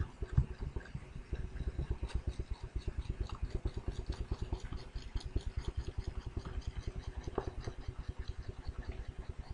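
Pen stylus scribbling quickly back and forth on a drawing tablet's surface while shading, a rapid, even rhythm of strokes, about ten a second.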